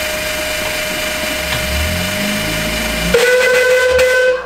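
Miniature steam locomotive letting off steam: a steady hiss with a held whistle tone, then about three seconds in a louder, lower-pitched steam whistle blast that stops abruptly just before the end.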